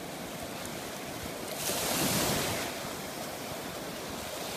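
Ocean surf washing over a shallow beach, with wind buffeting the microphone; the rush swells louder for about a second, a little under two seconds in.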